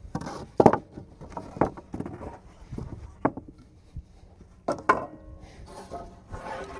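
Wooden 2x4 boards knocking against each other several times as they are handled and stacked by hand, with a brief ringing after one knock about five seconds in.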